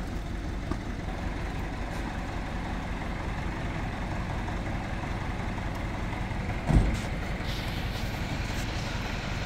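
Dump truck's diesel engine idling with a steady low rumble. A single loud thump comes about seven seconds in.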